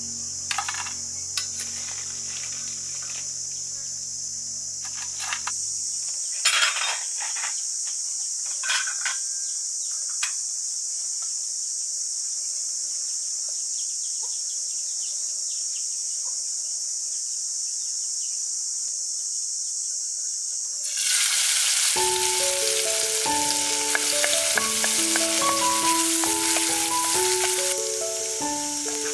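Box crab pieces sizzling in a hot wok, with clinks and scrapes of a metal spatula during the first ten seconds. About 21 seconds in, a much louder, fuller sizzle starts as chopped garlic and chili fry in oil in a pan. Light background music fades out about six seconds in and returns about a second after the loud sizzle begins.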